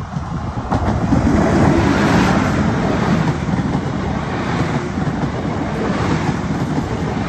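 Diesel multiple-unit passenger train passing close by. Its running and wheel-on-rail noise swells over the first second or so, then holds steady as the carriages go by.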